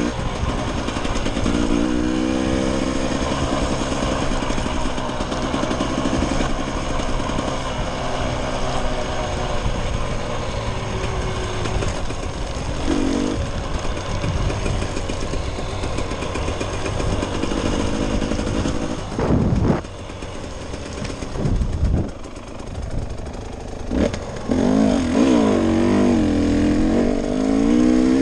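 Dirt bike engine running under load on a trail ride, its revs rising and falling with the throttle. A few sharp thumps come about two-thirds in as the engine eases off, and it revs up hard again near the end.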